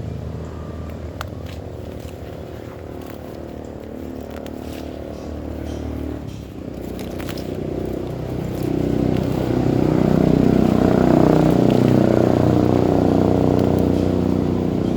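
An engine running, its pitch shifting a little past a third of the way in, then growing louder about halfway through and easing slightly near the end.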